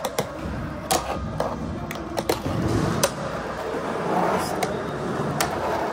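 Skateboard wheels rolling on a hard floor with a steady rumble, broken by several sharp clacks of the board hitting the ground.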